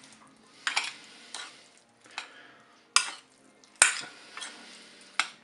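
Metal spoon stirring a cauliflower and hard-boiled egg salad in a glass bowl: soft squelching of the dressed salad, with a sharp clink or scrape of the spoon against the glass about once a second.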